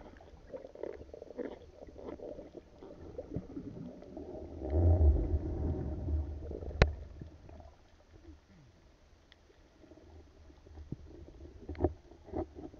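Muffled underwater sound picked up through an action camera's housing as a spearfisher swims: a low rumble of moving water with scattered small clicks and knocks. It swells into a louder rush about five seconds in, and there is one sharp click a little later.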